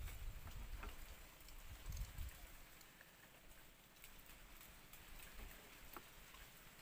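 Near silence with faint scattered ticks, and a low rumble at the start and again about two seconds in.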